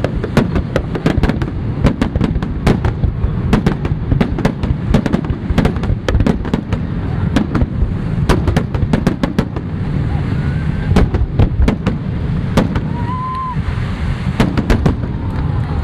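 Fireworks display: rapid, dense bangs and crackle over a continuous low rumble, the bangs thinning out after about ten seconds.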